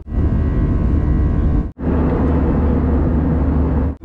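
Jet airliner cabin noise in flight: the engines and airflow make a steady rumble with a faint steady whine above it. It cuts out for a moment a little under two seconds in, then carries on unchanged.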